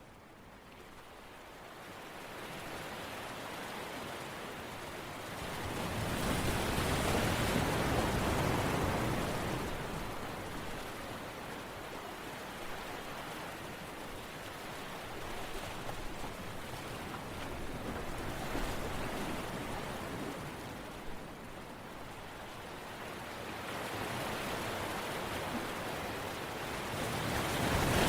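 Steady rushing water noise that builds over the first few seconds, swells loudest about six to nine seconds in, eases, and swells again near the end.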